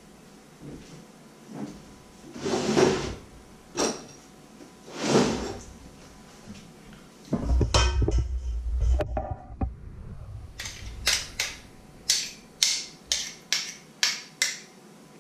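Kitchen utensil handling over a stainless steel bowl of pancake batter: two soft swishes, then a stretch of knocking and rustling. Near the end come about nine sharp metallic clinks, roughly two a second, as a metal spoon or ladle strikes the bowl.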